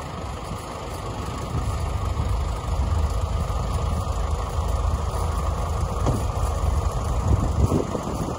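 Farm tractor engine running steadily while the tractor moves a trailer on a hitch bar mounted on its loader bucket. It gets louder about two seconds in.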